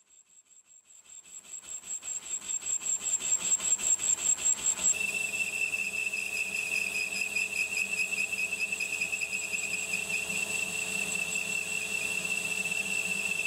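Metal lathe taking a heavy facing cut in 4140 steel with a carbide insert under spray mist coolant. A hiss pulsing about four times a second builds up over the first few seconds, then a steady high whistle with hiss takes over from about five seconds in.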